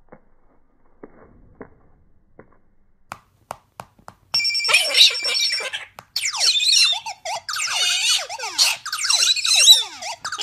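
A few faint ticks, then about four seconds in a smartphone sound-effects app starts playing loud as a galah pecks its buttons: a ringing bell-like effect, followed by a string of quick falling electronic tones and clicks.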